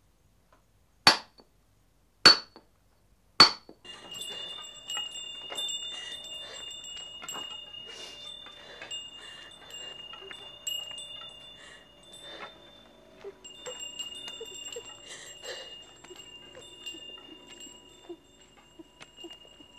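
Three sharp strikes of a hammer on a chisel against stone, about a second apart, each ringing briefly. Then a small pilgrim's hand bell jingles steadily, with small clicks, as it is carried along on the walk.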